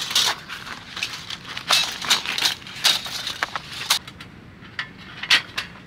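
Camping gear handled while a fire pit is set up: a fabric pouch rustled and unpacked, with irregular light knocks, scrapes and clatters of gear and wood being set down.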